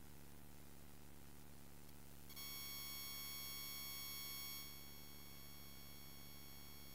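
Faint low hum, joined about two seconds in by a steady high-pitched tone with overtones. The tone is louder for a couple of seconds, then carries on more quietly.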